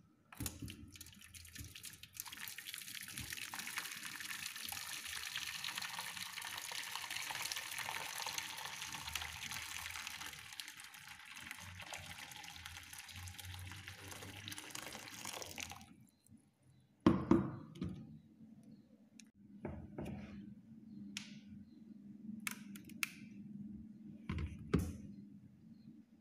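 Water running from a kitchen tap as a steady hiss, cutting off sharply after about sixteen seconds, followed by several sharp knocks and clinks, the loudest soon after the water stops.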